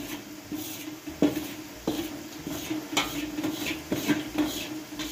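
Metal spatula scraping and clinking against a wok as it scoops fried garlic out of the oil, about one sharp knock a second, over a steady low hum.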